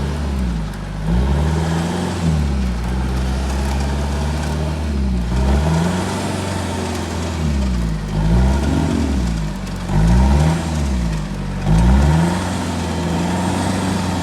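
A stuck 4x4 SUV's engine revved up and down in repeated surges as it strains to pull itself free and climb out.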